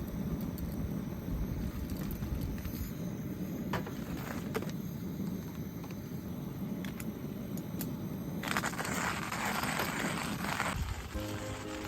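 Colombian coffee beans crushed in a hand coffee grinder, with crackling and crunching over a low rumble. A denser rush of noise lasts about two seconds from about eight and a half seconds in. Music starts near the end.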